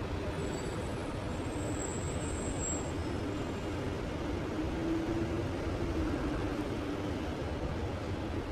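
Steady hum of distant city traffic, with a low engine tone swelling briefly around the middle.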